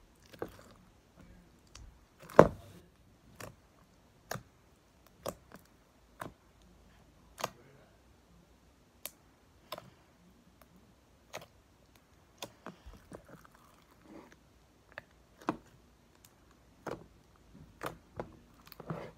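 Clear glitter slime with foam and slushy beads squished and kneaded by hand in a plastic tub: scattered sharp clicks and pops, about one a second, with one louder pop a little over two seconds in.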